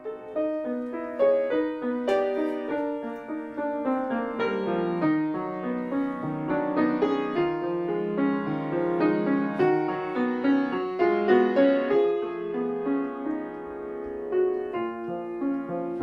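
Upright piano being played solo: a melodic passage of single notes and chords, each note struck and left to ring into the next.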